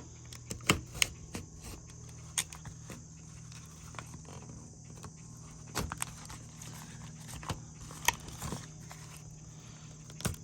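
Hard plastic blister packaging being cut open with a Leatherman Wingman's package opener: irregular sharp snips and cracks of the plastic, over a steady low hum.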